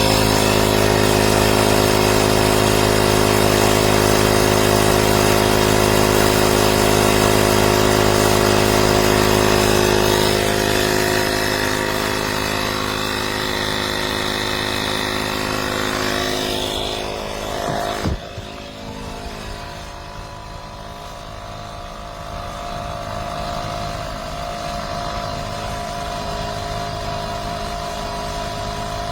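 AstroAI 12 V portable electric tyre inflator's compressor running steadily while pumping up a car tyre. A short knock comes about two-thirds through, after which it runs on quieter.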